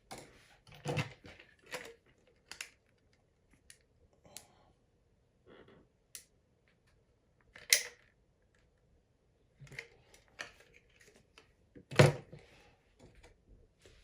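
Scattered clicks and light knocks of small parts being handled by hand, at uneven spacing, with two louder knocks about eight and twelve seconds in.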